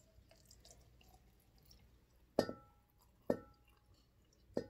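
Vinegar poured slowly from a glass pitcher into a glass mason jar: a faint trickle, then three sharp plinks, each with a short glassy ring, about a second apart.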